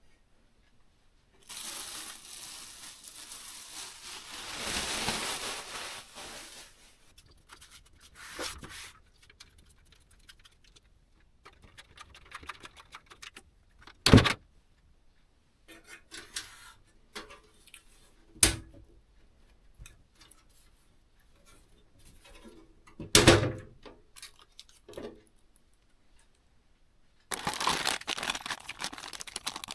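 Packaging being handled and torn open, likely while unpacking PC parts: a long tearing rustle, three sharp knocks a few seconds apart, then a run of plastic or paper crinkling near the end.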